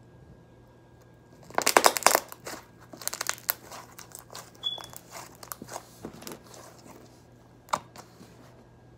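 Clear glitter slime being squished and pressed between the hands, giving clusters of quick clicks and pops, loudest about two seconds in, then scattered single pops and one sharp click near the end.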